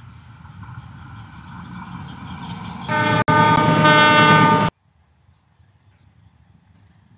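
Diesel-hauled passenger train approaching with a rumble that grows steadily louder, then the locomotive's horn sounds loud, a chord of several tones, for nearly two seconds with a brief break. It cuts off suddenly, leaving only a faint outdoor background.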